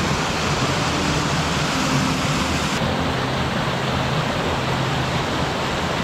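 Waterfall and rocky mountain stream: white water rushing steadily over boulders.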